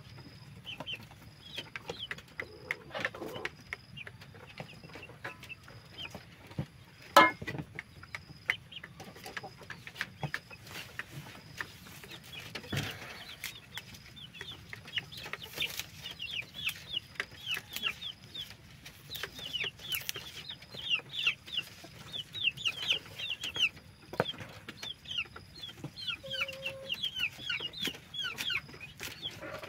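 Chickens clucking, with many short, high peeping calls that grow busier in the second half, over scattered knocks of chopping on a wooden board; one sharp knock about seven seconds in is the loudest sound.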